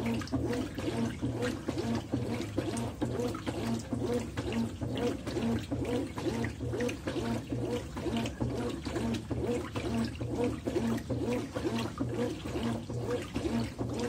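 Consul 13 kg top-loading washing machine agitating a full tub of laundry on agitation level 1: water sloshing in a regular back-and-forth rhythm, about two strokes a second, over a steady motor hum.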